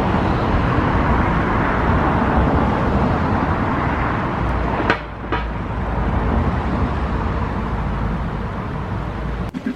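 Thunderstorm: a steady, loud rush of heavy rain with a deep rumble under it. There are two sharp clicks about halfway through, and the sound cuts out abruptly near the end.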